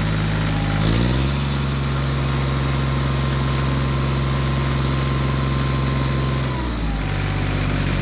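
Tractor engine running, revving up about a second in, holding at the higher speed, then dropping back near the end, as a straining tractor stuck in sand would.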